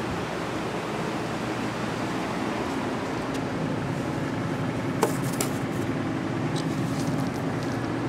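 Steady mechanical hum of a running fan or blower, with one sharp click about five seconds in and a few faint ticks after it.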